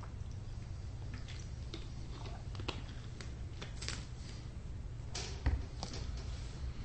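Quiet room tone with a steady low hum and scattered faint clicks and small rustles. The loudest is a soft knock about five and a half seconds in.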